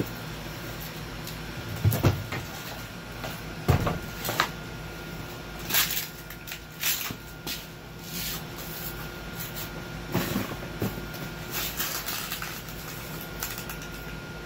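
Irregular knocks, bumps and scraping as a heavy man squeezes feet first through a small basement window, his body, jeans and boots rubbing and knocking against the window frame and the concrete sill. A steady hum runs underneath.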